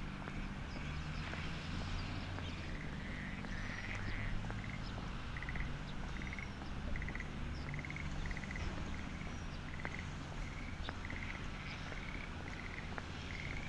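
Frogs calling: a steady series of short, pulsed croaks, one to two a second, over a low steady hum, with faint high chirps.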